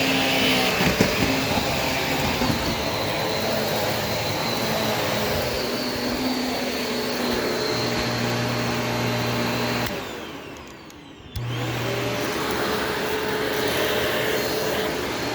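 Shark vacuum cleaner running steadily. About ten seconds in, the motor cuts out and winds down with a falling whine, then comes back on abruptly a second and a half later.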